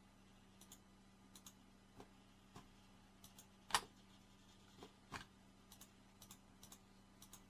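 Near silence broken by faint, irregular computer mouse clicks, about two a second, a couple of them a little louder, made as mesh faces are shift-selected one by one.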